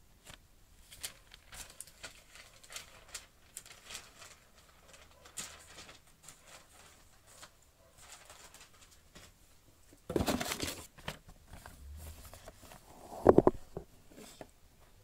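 Paper catalogues and a cardboard box being handled: scattered light rustles and taps, a loud burst of rustling about ten seconds in, and a sharp loud knock a little after thirteen seconds.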